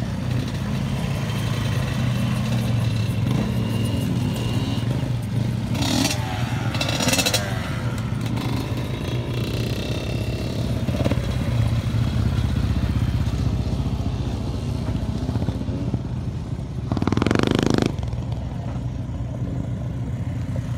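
Small quad ATV engines running steadily as the quads circle, with a brief, louder rush of noise late on.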